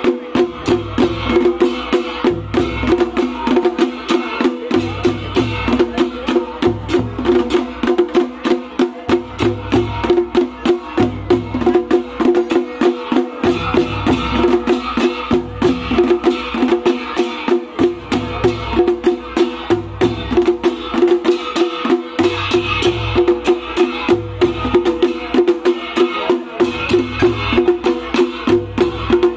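Damaha, a large Nepali kettle drum, beaten with sticks: a fast, even beat of sharp strikes, about four or five a second, over deep low strokes in a repeating pattern, with a steady ringing tone underneath.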